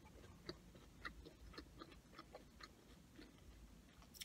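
Faint chewing of McDonald's french fries: soft, scattered little crunches and mouth clicks, with a slightly sharper click near the end.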